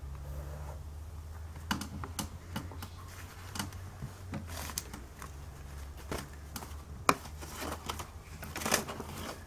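Scattered, irregular clicks and taps of things being handled on a desk beside a laptop, over a steady low hum.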